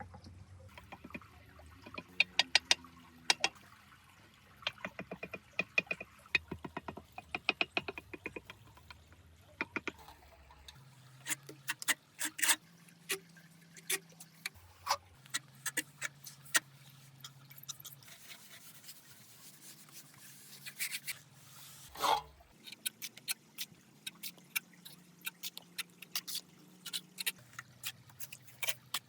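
Irregular small clicks, taps and scrapes of hand work on a miniature model: small hard pieces being set and tapped in place. The taps come in quick runs at times, with one louder knock near the end.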